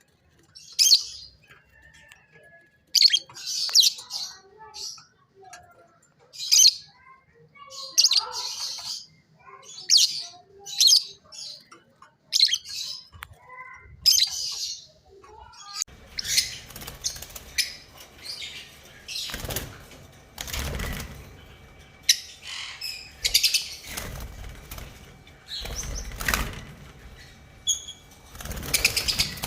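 Lovebirds giving short, high-pitched chirps over and over, with wings flapping now and then.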